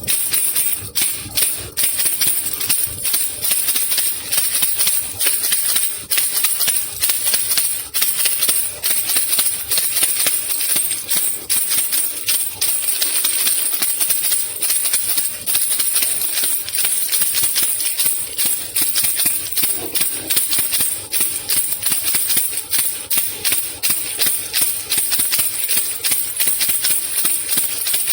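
Baby rattle (khulkhula) shaken steadily and fast, a continuous dense rattle with a bright, jingly top.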